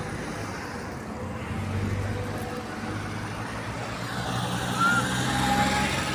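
A motor vehicle's engine running steadily with a low hum, among general roadside noise. A brief high chirp cuts through about five seconds in.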